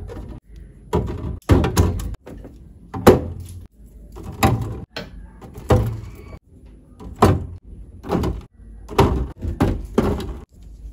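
An irregular series of knocks and thuds, about one a second, of food containers and items being set down and shifted on refrigerator shelves.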